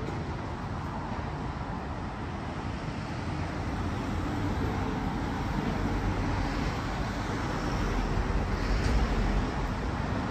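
Road traffic going by on a city street: a steady mix of engine and tyre noise, swelling as a vehicle passes close about eight to nine seconds in.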